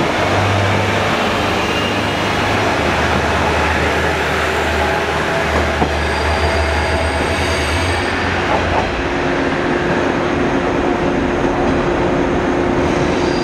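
JR East diesel railcars pulling out of a station, first a KiHa E120 and then a KiHa 110: a low diesel engine drone and a steady rumble of wheels on the rails. Faint high-pitched wheel squeal comes in a little past halfway and again near the end.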